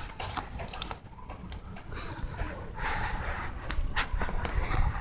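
Handling noise of a phone being slid across rulers: rubbing and scraping with scattered clicks, a rustling hiss about three seconds in, and a low rumble underneath.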